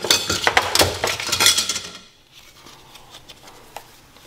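Small metal parts clinking and clattering for about two seconds, then only a few faint taps: thin metal shim plates and hardware being handled while shimming an engine mount.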